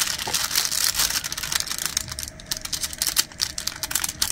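Plastic cover film on a glue-coated diamond painting canvas crinkling as the canvas is handled and unfolded, a dense run of small crackles and clicks.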